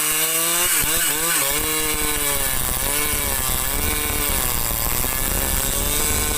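Husqvarna 395XP two-stroke chainsaw cutting into cengal hardwood, its engine pitch repeatedly sagging and recovering as the chain loads up in the cut.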